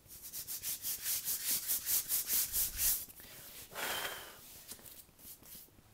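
Hands being wiped back and forth on trouser fabric in quick rubbing strokes, about five a second, to dry sweaty palms. About four seconds in there is a short, louder rush of noise, and then fainter rubbing.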